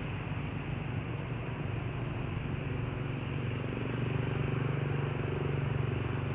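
An engine running steadily, a low drone that grows a little louder about four seconds in.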